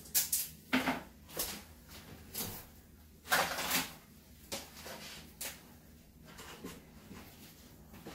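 Irregular knocks, clatters and rustles of a person moving about and handling things, in about eight short separate bursts. The longest and loudest is a rustling clatter about three seconds in.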